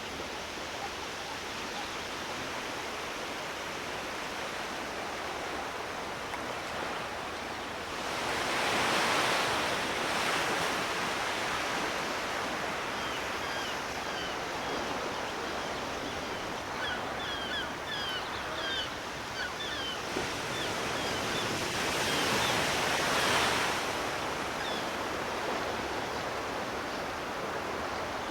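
Sea surf washing in over a steady hiss, swelling louder twice as waves break. A run of short high chirps sounds through the middle.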